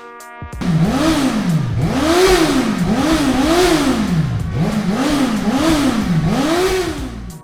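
Motorcycle engine revved over and over, about seven quick throttle blips, each rising in pitch and falling back.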